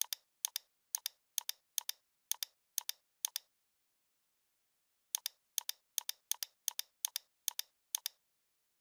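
Computer mouse button clicking in two runs of about eight clicks each, separated by a pause of about a second and a half. The clicks come at an even two to three a second, and each is a quick press-and-release pair, as when items are picked one by one from a list.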